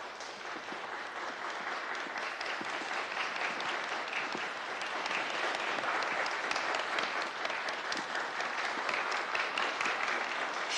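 A large crowd clapping 'a tegola' (tile style), the fingers of the right hand held tightly together and slapped against the palm. The applause swells over the first couple of seconds, holds steady and stops abruptly at the end.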